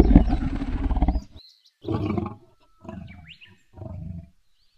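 Dinosaur roar sound effect for a Neovenator puppet. It opens with one long, loud roar of about a second and a quarter, then gives three shorter, quieter growls about a second apart, with faint bird chirps in between.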